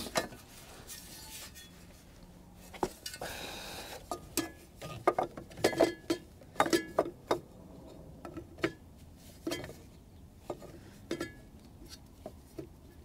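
A series of short, sharp metallic clinks and taps, with a brief scraping sound about three seconds in: gloved hands handling metal parts and fasteners while putting the generator compartment back together.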